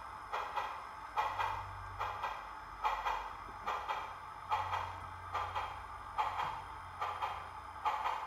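Recorded steam exhaust chuffs from the speaker of a sound-equipped HO scale 2-8-8-2 Mallet model steam locomotive moving slowly. The chuffs come about two a second, slightly uneven, over a low steady hum.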